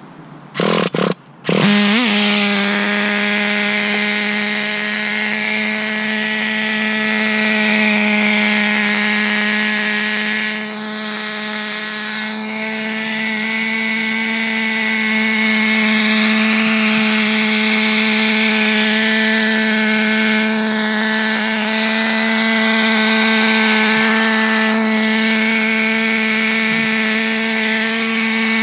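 Traxxas TRX 3.3 two-stroke nitro engine of a Nitro 4-Tec RC car: after a few short bursts it catches about two seconds in and then runs on at a steady, high, unchanging pitch.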